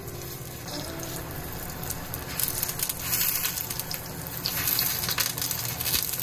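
Stuffed shiitake mushrooms sizzling in oil in a frying pan, the sizzle growing louder and more crackly from about two and a half seconds in as they are turned over.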